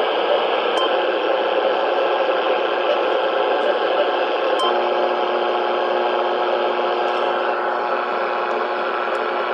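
HF radio receiver playing steady band static through its speaker, a loud even hiss with no keyed signal in it. About halfway through, after a faint click, several steady low tones come in over the hiss. The beacons that should be on these frequencies are gone, which the operator puts down to noise covering the whole HF band.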